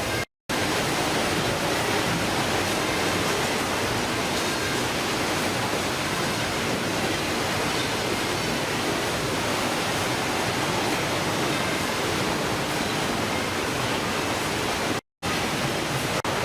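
Steady, even rushing noise, cut to total silence for a split second twice, near the start and near the end.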